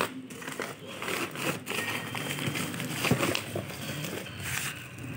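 Bubble-wrapped packages and a cardboard box being handled: irregular plastic crinkling and rustling with scattered light knocks.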